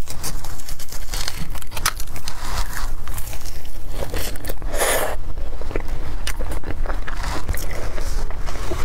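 Close-miked biting and chewing of a flaky baked tart with a juicy beef filling: crisp crackles and clicks of the pastry crust alongside wet mouth sounds, with one louder burst about five seconds in.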